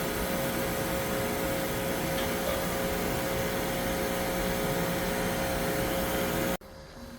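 A steady mechanical drone: even, hissy noise with a constant hum, which cuts off suddenly near the end.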